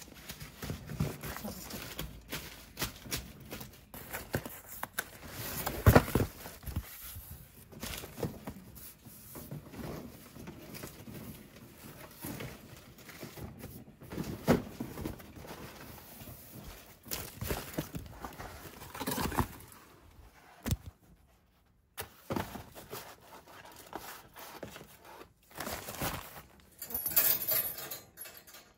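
Crumpled newspaper rustling and wire-cage and plastic litter-tray parts knocking as a cat cage is tidied by hand, with irregular knocks and the loudest thump about six seconds in.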